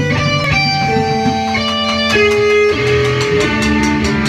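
A rock band jamming live in a room: electric guitars holding and sliding between notes over bass and drums. Steady cymbal taps come in around the middle.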